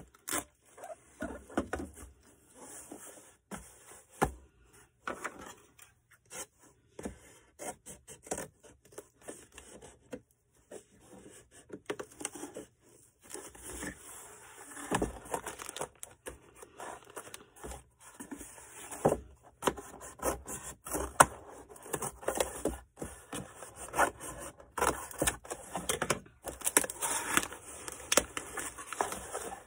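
Irregular rustling, scraping and light knocks of an order being packed by hand: cardboard, packing material and tape being handled.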